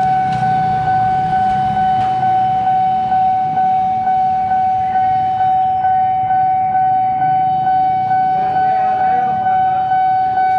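Railway level-crossing warning alarm sounding: a loud, steady electronic tone that pulses about twice a second, signalling an approaching train.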